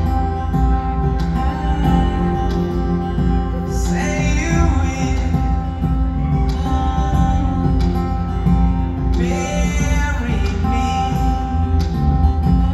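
Live band playing a slow song: a lead vocal over acoustic and electric guitars, keyboard and drums, heard from the audience in an arena.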